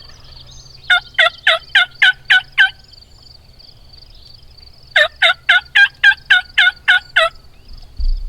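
Turkey yelping: two series of loud, evenly spaced yelps, about four a second, each note breaking downward in pitch. The first series starts about a second in, the second about five seconds in and runs a little longer.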